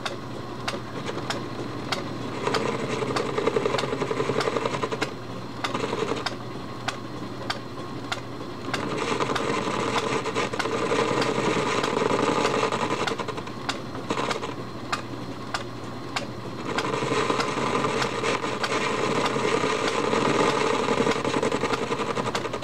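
Metal lathe running, its carbide insert taking a facing cut to square up a steel surface; the cutting noise swells three times over the steady hum of the motor and gears, with many small ticks throughout.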